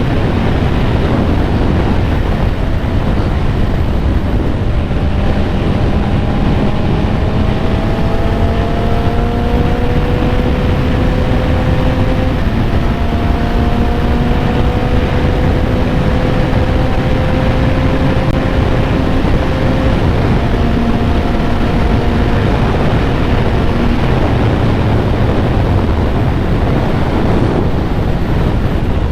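Heavy wind noise on a helmet microphone while riding, with the Honda CBR650R's inline-four engine and Akrapovic exhaust heard faintly underneath. The engine note creeps slowly upward a few times as the bike gathers speed.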